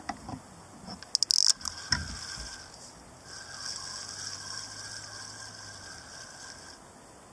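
Sharp clicks and knocks as a carp rod is taken off its rest, then a fishing reel whirring steadily for about three and a half seconds.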